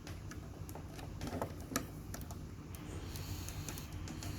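Small, irregular plastic clicks and taps from handling a USB humidifier and its cable as the plug is pushed in, the loudest about a second and a half in, over a steady low background hum.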